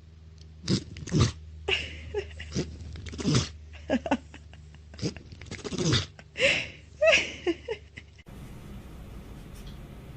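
Pets sneezing: a rapid run of short, sharp sneezes and snorts over the first eight seconds, over a low steady hum. About eight seconds in, the background changes abruptly and it goes much quieter.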